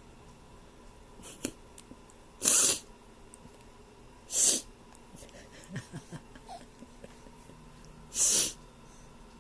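A person with a head cold sniffing hard through a runny nose: three loud, short sniffs, the second about two seconds after the first and the third about four seconds later, with a few faint small sounds in between.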